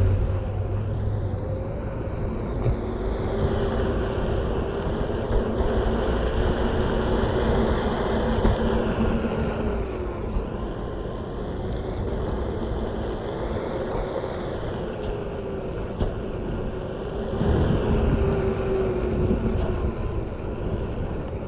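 Onewheel electric board being ridden on its new Enduro tire: the hub motor's whine slowly rises and falls in pitch with speed over a steady rush of rolling noise, with a few light clicks.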